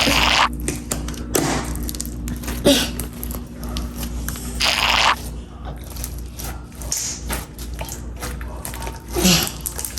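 Homemade slime being squished and pressed by hand, giving a handful of short, wet crackling squelches.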